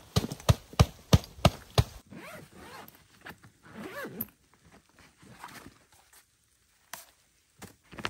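Boots crunching on snow, about six quick, evenly spaced steps in the first two seconds. These are followed by the zipper of a nylon wood-stove carry bag being pulled open in a couple of long sliding runs, with rustling of the bag.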